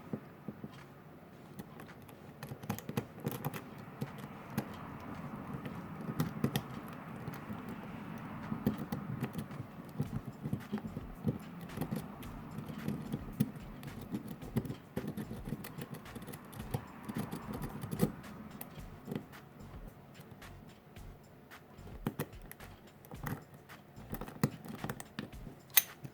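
Metal pick clicking and scraping inside a Eurospec 50mm padlock as a long rake is rocked in and out of the keyway against the pin tumblers: rapid, irregular small clicks over a soft rubbing noise.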